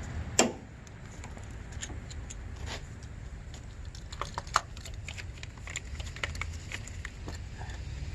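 Scattered clicks and light knocks of hand work on the engine: ignition coils being pulled and swapped between cylinders to see whether a misfire follows the coil. The loudest click comes about half a second in, with a cluster around the middle, over a low steady rumble.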